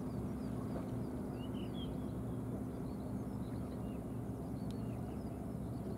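Small birds chirping over and over in short high notes, over a steady low hum.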